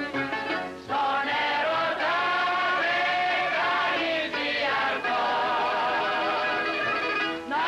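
Greek bouzouki orchestra playing a zeibekiko dance tune, a melody of long wavering held notes over the accompaniment.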